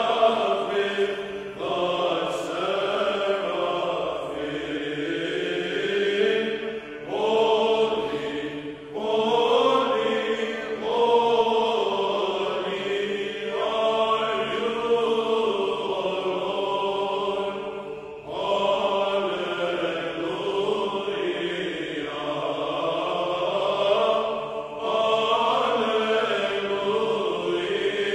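Sung chant music with voices holding long phrases and pausing briefly between them.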